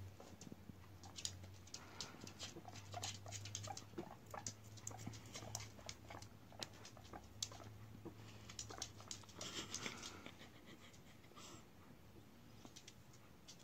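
Faint, irregular ticking of guinea pigs' claws on a wooden floor as they walk about, over a low steady hum.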